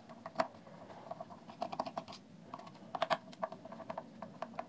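Small star-bit screwdriver turning out the corner screws of a plastic speaker housing: a run of soft, irregular clicks and scrapes, thickest around the middle.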